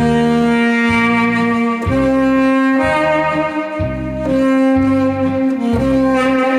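Tenor saxophone playing a slow melody of long held notes over a backing track with a pulsing bass line.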